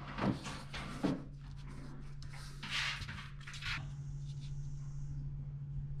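Pieces of painted paper being handled and set down on a tabletop: two soft knocks in the first second, then a brief paper rustle and a few light taps, over a steady low hum.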